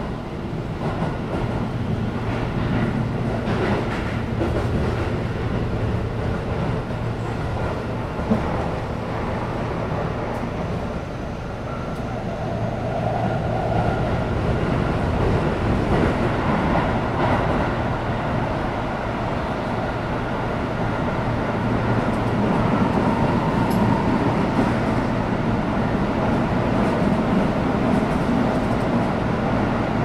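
Keihan electric train sounds in an underground station: a steady rumble and hum that swells a little in the second half.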